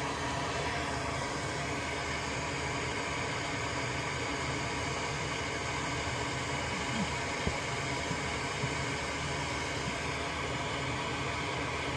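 Steady even background hiss, with a few faint ticks between about seven and nine seconds in.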